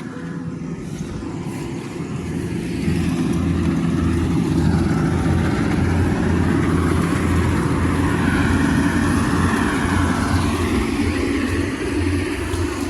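An engine running steadily, louder and fuller from about three seconds in.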